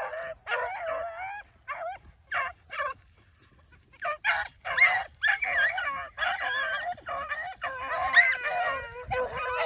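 Pack of beagles baying as they run a rabbit's track, several dogs giving tongue at once in repeated rising and falling cries. The cry breaks off for about a second around three seconds in, then comes back fuller with many voices overlapping.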